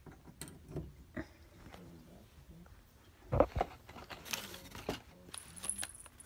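Handling noises: scattered light clicks, a sharp knock about three and a half seconds in, then a brief crinkle of a cat toy's plastic-and-card blister pack as it is picked up.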